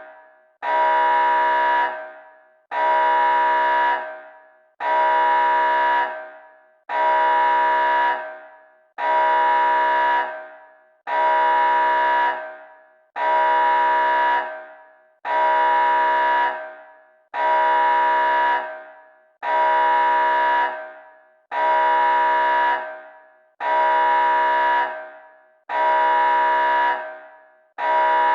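Synthesized emergency-alert tone, a harsh horn-like chord that sounds about every two seconds, each blast starting sharply, holding for about a second and then fading away.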